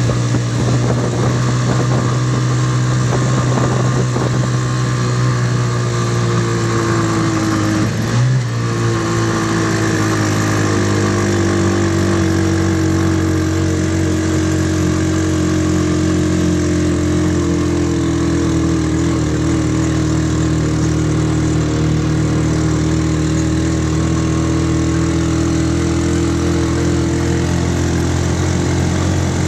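Engine of an open-sided vehicle running steadily while it drives along. The engine note drops about eight seconds in, then holds steady.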